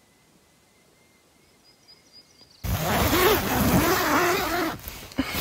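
An owl calling loudly from close overhead: a run of wavering, pitch-bending hoots that begins abruptly about two and a half seconds in, after near quiet.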